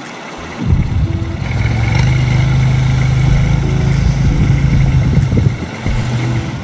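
A vehicle engine running with a steady low hum. It swells up about a second in and falls away shortly before the end.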